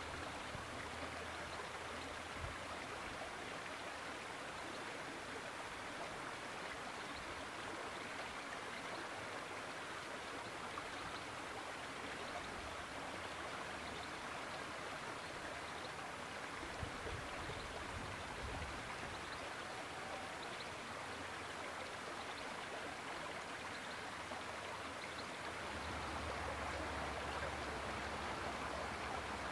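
Steady rushing outdoor ambience, with a low rumble joining about three-quarters of the way through.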